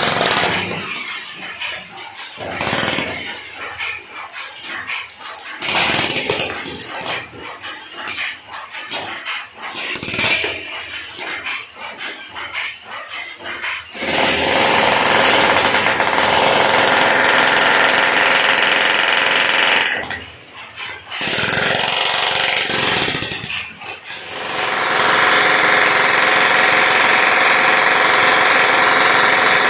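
16 kg demolition breaker hammering into a concrete ceiling slab. For about the first half it runs in short bursts; then it hammers continuously, stopping briefly twice, as the chisel breaks through the slab.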